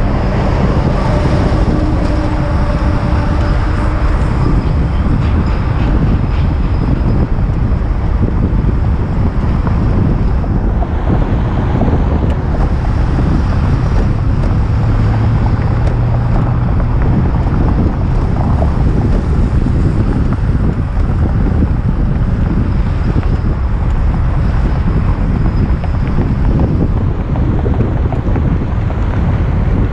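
Steady wind rush on the microphone of a moving velomobile, mixed with road noise and nearby car traffic.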